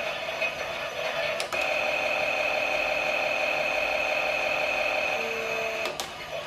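Klein Miele toy washing machine running a pretend wash cycle: its small motor whirs, and a click about a second and a half in gives way to a steadier, higher-pitched sound until another click near the end.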